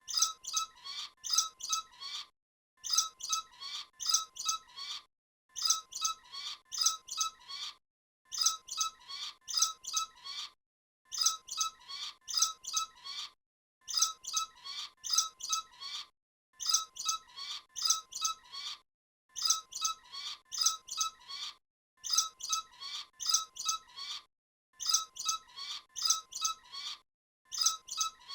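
Bats squeaking: quick runs of about half a dozen sharp, high-pitched chirps over a faint steady tone. The same two-second run repeats about ten times, with short silent gaps between.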